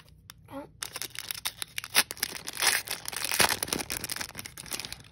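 Foil Pokémon booster pack wrapper being torn open and crinkled by hand: a dense run of quick, irregular crackles and rips.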